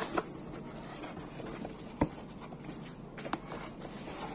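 Packaging being handled by hand: scratchy rustling and scraping with a few sharp clicks, the loudest about two seconds in.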